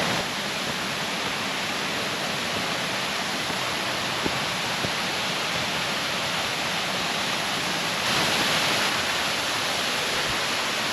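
Waterfall: a steady rush of falling water, swelling slightly for about a second near the end.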